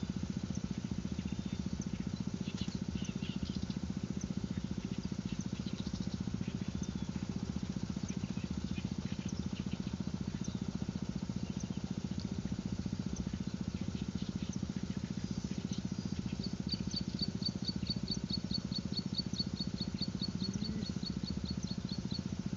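A small engine running steadily, a low pulsing drone. In the last few seconds a rapid series of short, high chirps comes over it, about five a second.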